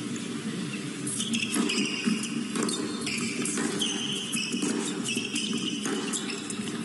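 Tennis rally on an indoor hard court: a string of sharp racket-on-ball hits, with the players' shoes squeaking on the court in short high squeals.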